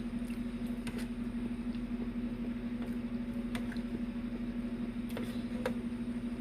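Chewing and mouth smacks while eating, a few short soft clicks, over a steady low electrical hum.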